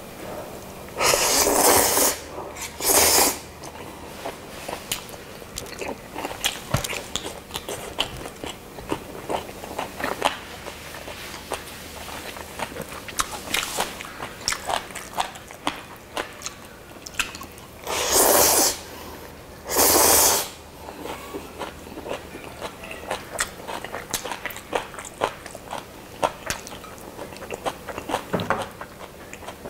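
Close-up eating of black-bean-sauce instant noodles: four loud, noisy slurps of about a second each, two in the first few seconds and two about two-thirds of the way through. Between them come steady chewing and small wet mouth clicks.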